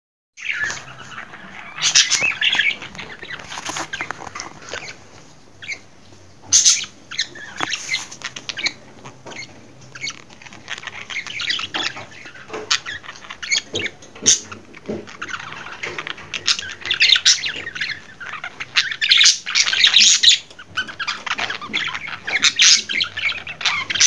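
Budgerigar chattering and warbling: a steady stream of quick chirps and squeaks, with louder sharp calls scattered through.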